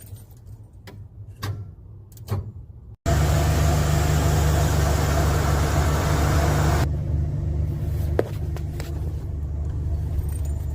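A 1981 Ford F-150 with a bad starter, key turned for a start attempt: a loud, even mechanical noise starts suddenly about three seconds in. Its hiss cuts off about four seconds later while a low rumble carries on.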